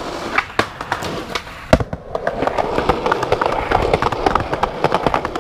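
Skateboard wheels rolling on a concrete sidewalk, a rough rolling noise full of rapid small clicks, with one sharp clack just under two seconds in.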